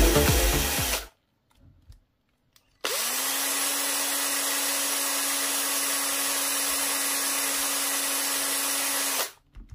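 Cordless drill motor spinning up with a brief rising whine about three seconds in, then running at a steady speed for about six seconds before stopping near the end.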